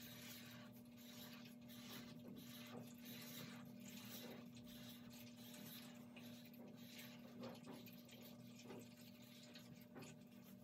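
Faint scratching of a Sharpie permanent marker tracing lines on drawing paper, in short irregular strokes.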